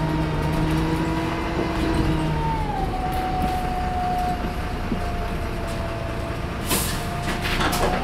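Turbo whine of a VDL SB200 single-decker bus's diesel engine, heard from inside the saloon over steady engine and road rumble: a thin whistle that drops in pitch about three seconds in and then holds. Two short, sharp hisses near the end.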